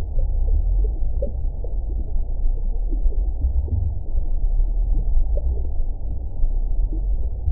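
Lava bubbling: a deep, muffled, continuous rumble with short low blips and pops scattered through it.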